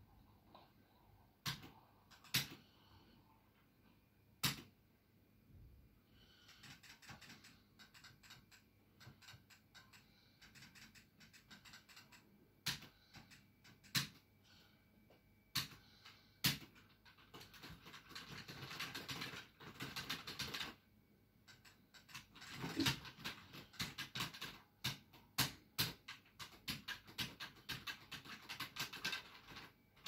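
Arcade stick with a Crown 303 joystick being played: clicking from its push-buttons and lever. There are single clicks at first, then rapid clicking from a little past halfway as play gets going.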